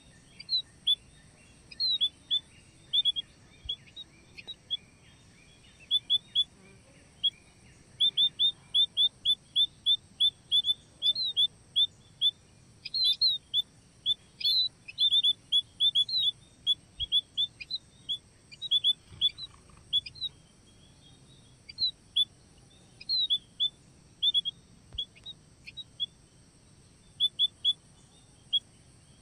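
Munias (emprit) chirping: short, high chirps in quick runs of several a second, broken by short pauses.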